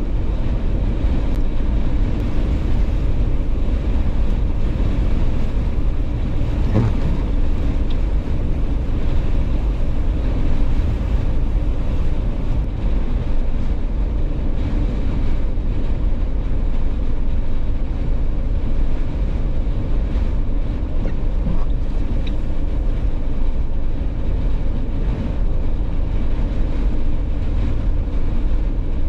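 Steady driving noise of a Jeep at road speed: a continuous low rumble of tyres and engine with wind noise mixed in. There is one brief knock about seven seconds in.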